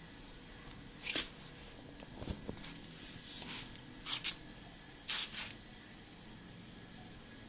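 Four brief rustling scrapes over a faint steady hiss, with no engine running.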